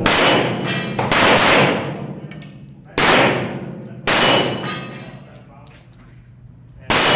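Pistol shots fired in pairs about a second apart, five in all, each a sharp crack followed by a fading metallic ring.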